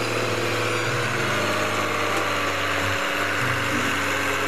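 Heavy diesel log truck engine running at low revs as the loaded truck manoeuvres slowly, its pitch shifting a few times.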